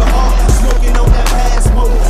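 Hip-hop backing track with a deep 808-style bass and a regular beat, a heavy hit about every half second.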